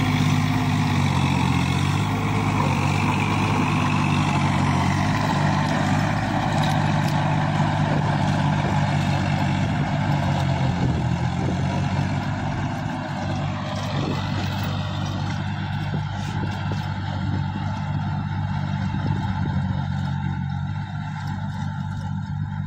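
Tractor engine running steadily at a constant speed while ploughing a field, a little quieter in the second half.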